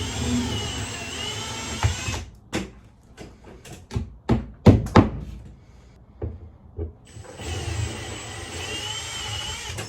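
Milwaukee cordless drill boring a 7 mm hole through plasterboard into the timber behind it, in two runs of a few seconds each with a wavering motor whine. Between the runs come a few sharp knocks and clicks.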